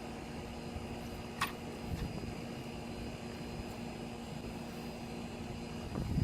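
Steady background hum with a faint steady tone in it, broken by one short sharp click about one and a half seconds in.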